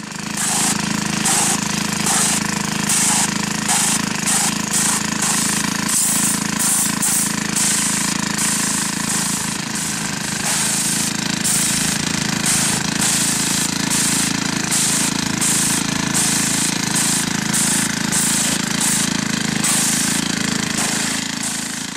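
Pressure washer running, its engine and pump humming steadily under the hiss of a high-pressure water jet spraying a stone monument to clean off mold; the hiss swells and fades unevenly as the jet moves over the surface.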